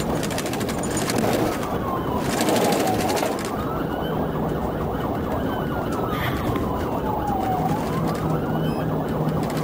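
Police patrol car siren on a slow wail, its pitch rising and falling about twice, over steady road and engine noise from the car running at speed.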